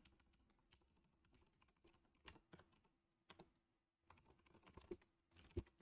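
Faint keystrokes on a computer keyboard: scattered short clicks of typing, with a brief pause a little before four seconds in.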